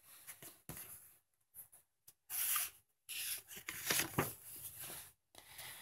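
Paper pages of a paperback book being turned and handled, rustling in several short bursts, with a longer stretch of rustling in the second half.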